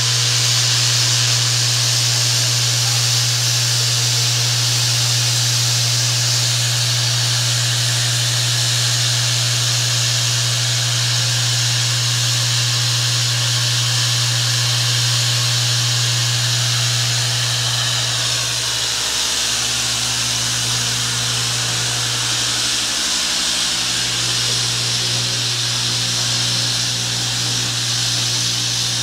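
Standing FS 625 steam locomotive venting steam: a steady hiss over a steady low hum, the hum dipping briefly twice about two-thirds of the way through.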